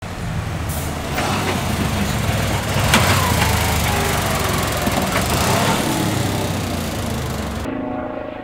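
Fire engine driving past close by: heavy diesel engine and tyre noise, loudest about three seconds in. Near the end it gives way to a helicopter overhead, heard as a steady whine of several tones.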